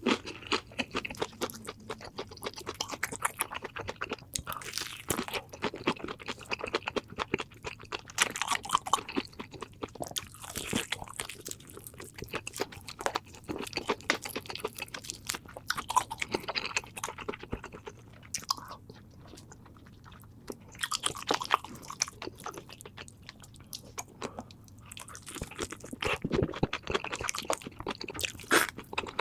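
A person biting and chewing crunchy food close to the microphone: irregular crisp crunches and wet chewing clicks, with a short lull about two-thirds of the way through.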